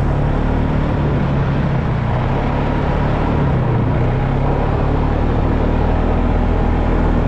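Polaris Sportsman 570 ATV's single-cylinder four-stroke engine running steadily while the quad is driven over snow, its note dipping and then rising again about midway through.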